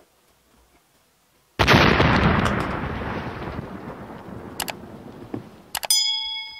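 Subscribe-button animation sound effects: a sudden loud boom that dies away slowly over several seconds, then mouse-style clicks, then a ringing bell chime near the end.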